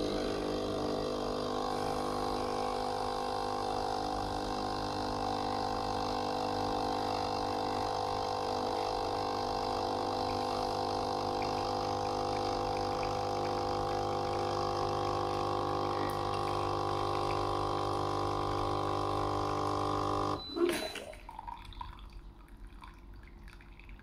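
Noon East 19-bar multi-capsule espresso machine's pump humming steadily as it pushes hot water through on a first-run cleaning cycle. It stops abruptly about twenty seconds in with a short burst, leaving faint drips into the glass cup.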